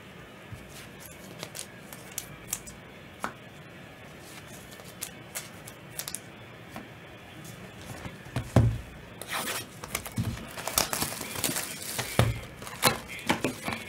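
Trading card pack wrappers being torn open and crinkled, with light clicks and taps of cards being handled; the tearing and crinkling get dense and louder about nine seconds in, with a few dull thumps against the table.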